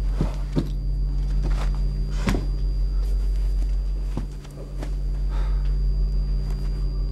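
Shuffling footsteps and a few short knocks as a person gets up off the floor and steps about a small room, over a steady low hum.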